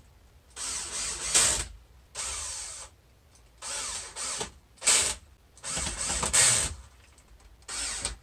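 Cordless drill running in about six short bursts as it drives screws into the corners of a 1x4 pine frame. The motor spins up and winds down between runs.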